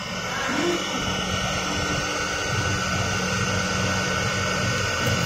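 WDS-700 BGA rework station running: a steady rushing hiss of its hot-air blower and fans, with faint steady whining tones.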